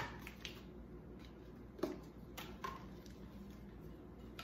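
A few short clicks and light taps from white measuring spoons and a baking powder container being handled while a teaspoon of baking powder is scooped out. The click right at the start is the loudest, with another about two seconds in.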